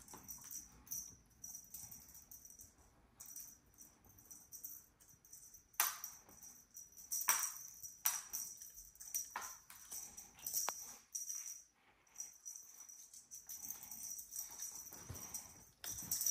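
Irregular light rattling and tapping as two Sphynx kittens pounce on a feathered wand toy, the lure and their paws knocking on a laminate floor. Several sharper taps stand out in the middle.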